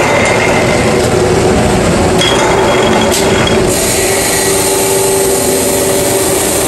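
Metal lathe running: a steady mechanical noise with a whining tone and a few sharp knocks.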